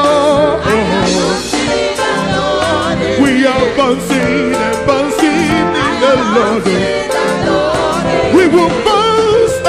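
Upbeat live gospel praise-and-worship music: a band with a drum kit playing a steady dance beat while a lead singer sings over it.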